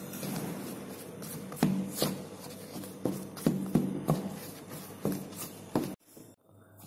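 Green plastic spatula chopping and scraping through crumbly flour-and-margarine dough in a stainless steel bowl, cutting the fat into the flour to a sandy crumb. Irregular scrapes and taps about twice a second, cutting off about six seconds in.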